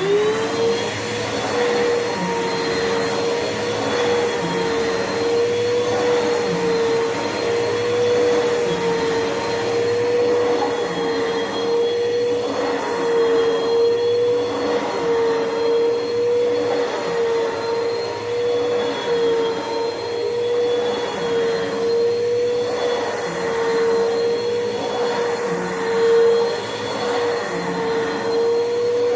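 Bissell PowerForce Bagless upright vacuum cleaner switched on, its motor spinning up at once to a steady whining hum over a loud rush of air. The noise swells and eases every second or two while the motor runs.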